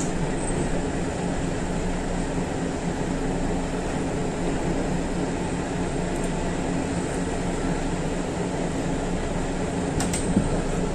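Diesel railcar's running noise heard from inside the cabin, a steady rumble with a low hum, as the train rolls into its terminal platform. Two sharp clicks come near the end.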